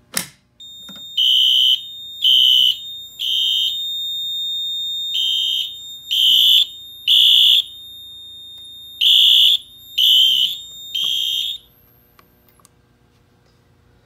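Notifier NBG-12LX pull station handle pulled down with a sharp click, then Wheelock horn/strobes sounding in sync in the temporal-3 evacuation code: three short high blasts, a pause, repeated three times, over a steady high tone. The alarm cuts off about eleven and a half seconds in.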